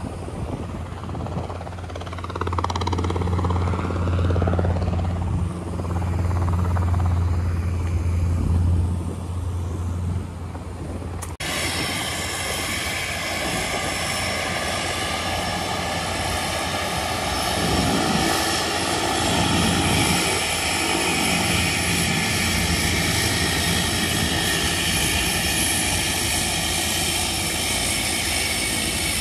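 A low steady engine drone with sweeping tones over it. About eleven seconds in it cuts to a Cessna 208 Grand Caravan's PT6A turboprop taxiing to the gate: a steady high whine with several held tones over a rushing hiss.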